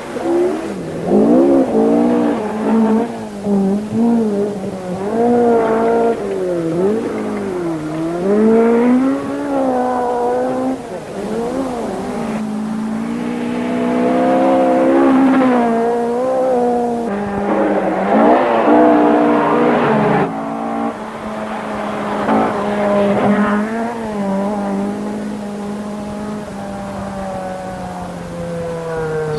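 Ford Escort RS 1600 rally car's four-cylinder engine revving hard, its pitch climbing and dropping again and again through gear changes and corners. For the last several seconds it holds a steadier, slowly falling note.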